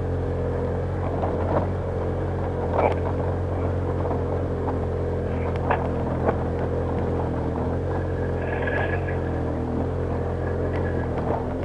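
ATV engine idling steadily at a constant pitch, with a few light knocks and clicks over it.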